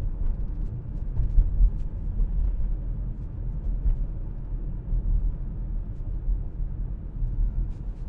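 Steady low rumble of a car being driven, heard from inside the cabin: tyre and engine noise at cruising speed.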